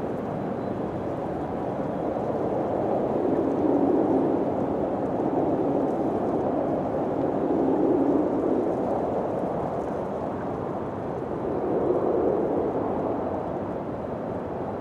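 Wind blowing in gusts: a steady rushing noise that swells three times and eases between.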